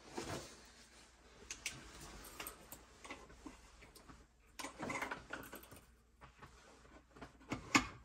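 Quiet handling noises from working by hand on an oil burner: cloth rustling and light metal clicks and taps, with a couple of sharper clicks near the end.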